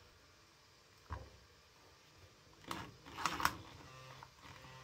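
Quiet handling sounds of a rotary hammer drill's front barrel assembly being fitted onto its gearbox: a soft knock about a second in, then a few light metal clicks a little past halfway.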